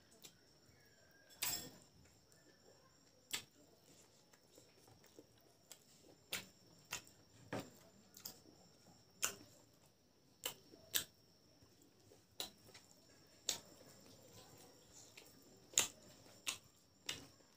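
Close-up mouth sounds of a person eating boiled pork, mustard leaves and rice by hand: quiet chewing broken by about a dozen short, wet smacks and clicks at irregular intervals of a second or two.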